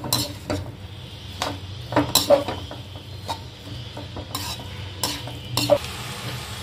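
Perforated steel skimmer stirring and scraping chopped vegetables around a metal kadhai, with irregular knocks and scrapes of metal on metal over a soft frying sizzle.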